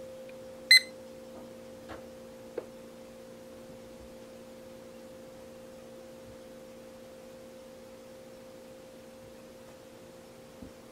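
A steady hum of several held low tones, with one short, loud, high electronic beep about a second in and two faint clicks soon after.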